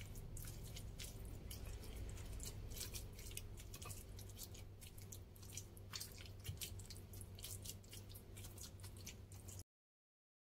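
Faint wet squishing and small irregular clicks of a stone pestle (ulekan) mashing fried tomatoes into sambal terasi in a stone mortar (cobek). It cuts off suddenly about a second before the end.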